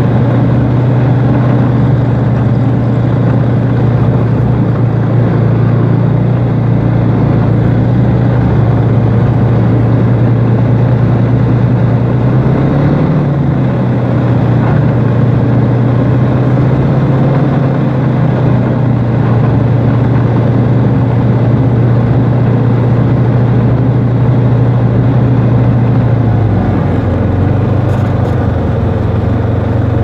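Snowmobile engine running steadily at cruising speed with a strong low hum, dropping a little in pitch about 26 seconds in.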